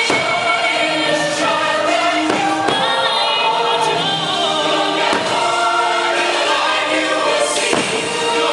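Fireworks show soundtrack: a choir singing over music, with a short sharp crack about every two and a half seconds.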